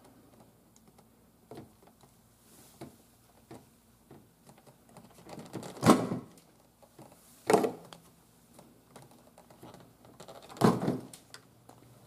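Wire stripper working on headlight wires: several light clicks, then three louder clacks of the tool gripping and pulling insulation off in the second half.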